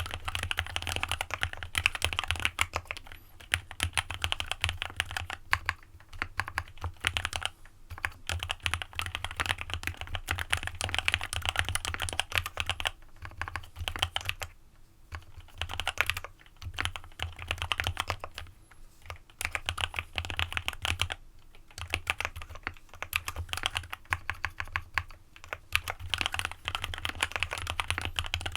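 Fast typing on a custom mechanical keyboard (AJAZZ x VARO AC067) with lubed Alpaca linear switches and a PE foam mod: dense runs of muted keystroke clacks, broken by short pauses between words and lines.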